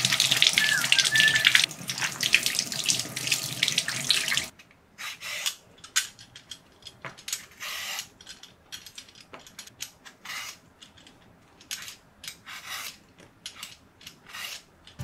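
Kitchen tap running water over hands and vegetables in a stainless steel sink, shutting off about four and a half seconds in. After that come short, irregular scraping strokes of a vegetable peeler taking the skin off a potato.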